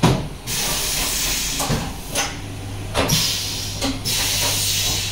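Haas UMC500 five-axis machining centre running a dry cycle with no cutting: repeated bursts of hissing, each lasting under a second, with sharp clunks between them. A steady low hum joins about two seconds in.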